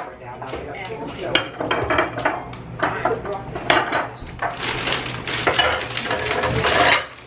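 Kitchen clatter: dishes, containers and utensils clinking and knocking as food is set out, with faint voices underneath.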